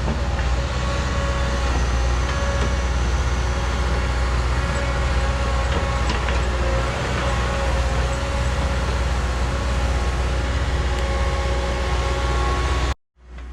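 Heavy earthmoving machine's diesel engine running steadily under load, with a deep low rumble. It cuts off abruptly near the end.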